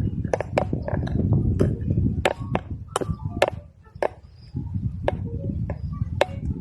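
Strong wind rumbling and buffeting on the microphone, with a string of irregular sharp clicks and knocks over it and a brief lull about two thirds of the way through.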